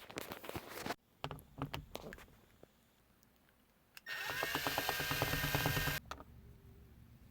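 Scattered clicks and knocks of parts being handled, then a small power tool's electric motor runs steadily for about two seconds and stops abruptly.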